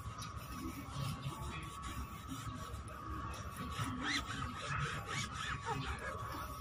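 A cloth rubbing back and forth on a car tyre's rubber sidewall, wiping spray paint off in repeated strokes, with a faint steady high hum underneath.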